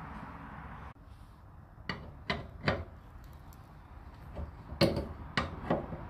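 Irregular knocks and clanks, about seven in four seconds, from the old wheel and its axle being worked off a wheelbarrow's steel frame. A steady low background noise cuts off about a second in, before the knocks start.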